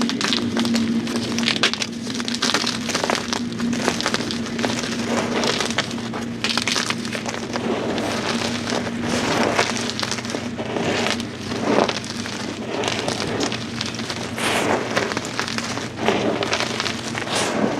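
Blocks of dyed gym chalk being crushed, a dense, continuous crackling and crumbling. A neighbour's lawn mower runs steadily underneath as a low hum.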